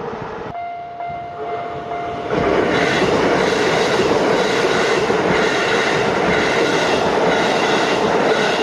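A Keisei main line electric train passing over a level crossing. The run of the train is loud from about two seconds in. The crossing's electronic warning bell rings steadily underneath.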